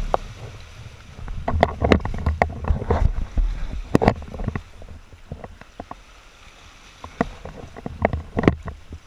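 Seawater surging and splashing in a narrow hole in the rock, irregular sharp splashes over a low rumble, with more splashing near the end as a scuba diver climbs up through the opening.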